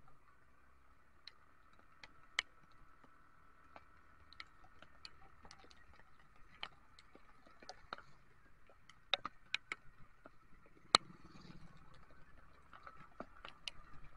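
Raindrops tapping on the camera and windscreen: irregular sharp ticks, a few a second, the loudest about eleven seconds in, over a faint steady hum.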